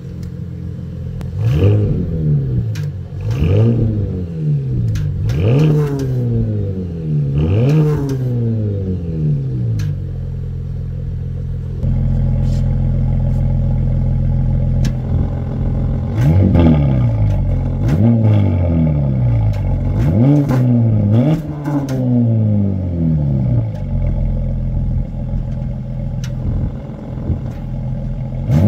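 Porsche Panamera 4S's 2.9-litre twin-turbo V6 through its sport exhaust, revved while parked: four quick blips that rise and fall back to idle. About twelve seconds in the idle gets louder, then come another four or so blips before it settles back to idle.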